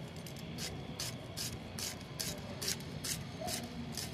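Onions being sliced with a blade, a short, crisp swish at each stroke in an even rhythm of about two to three strokes a second.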